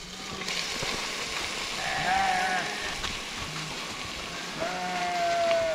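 Sheep bleating twice: a short, wavering bleat about two seconds in and a longer, steadier bleat near the end.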